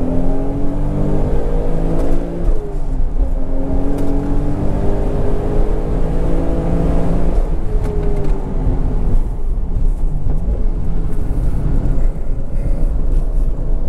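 Toyota Supra MKIV's single-turbo 2JZ-GTE inline-six pulling hard on track. Its pitch climbs, breaks about two seconds in, and climbs again, then drops away about eight seconds in as the throttle comes off, running rougher after that.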